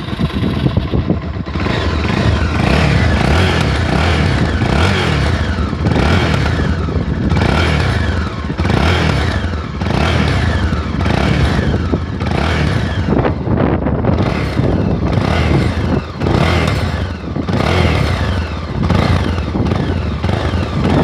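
Honda XR Tornado 250 motorcycle's single-cylinder engine revved again and again, its pitch climbing and falling about once a second, with a short dip about two thirds of the way through.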